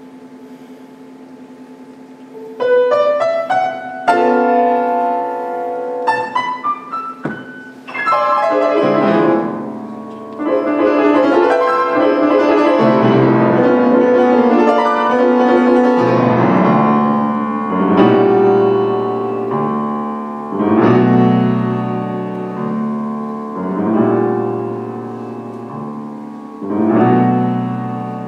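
Grand piano played solo: after a couple of seconds of low steady hum, quick rising figures come in about two and a half seconds in, followed by fast, busy passages and chords.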